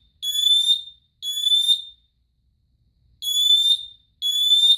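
First Alert Atom smoke alarm sounding on test: loud, high beeps about 0.7 s long, each sliding slightly upward in pitch into a whoop. Two beeps, a pause of over a second, then two more, in the groups-of-three evacuation pattern.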